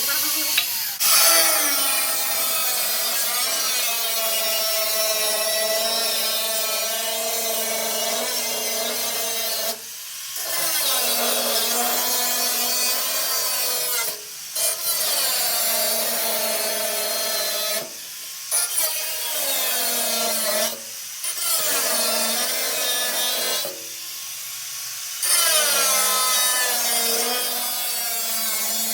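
Electric power tool, likely a drill or driver working fasteners, running in about six multi-second bursts with short pauses between. Its whine dips in pitch and recovers within each run, as under load.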